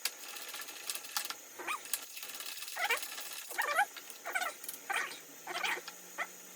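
A dog whining: about six short, high cries that slide up and down in pitch, coming roughly one every second, with a few sharp clicks in between.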